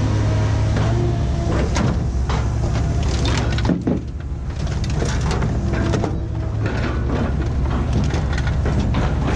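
A heavy engine running steadily, with frequent sharp knocks and clatters over it and a brief drop in loudness about four seconds in.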